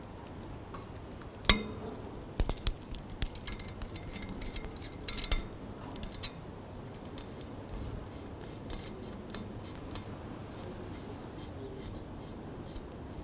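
Metal cable connectors clicking and clinking as they are handled and fitted onto a satellite transceiver: one sharp click about a second and a half in, a flurry of clinks over the next few seconds, then occasional small ticks.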